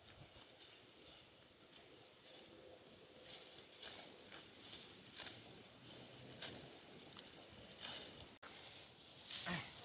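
Faint, irregular rustling and crackling of dry grain stalks being handled, a scatter of light ticks a few times a second.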